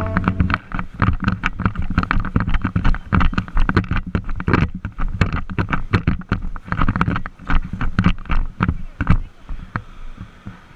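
Riding noise from a Royal Enfield Thunderbird 350 on the move: wind buffeting the on-bike camera's microphone with dense, irregular crackling over the engine's low rumble. It dies down near the end as the bike slows and stops.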